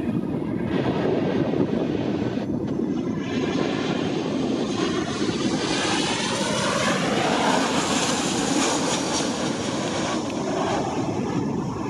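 Boeing 737 jet airliner's engines on approach, passing overhead: a steady jet rush with a higher whine that builds to its loudest about seven to nine seconds in, then eases off.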